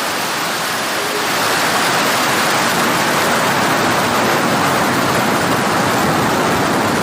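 Rocket engine noise from a SpaceX Starship prototype lifting off, a loud, steady rushing noise that grows a little louder about a second and a half in.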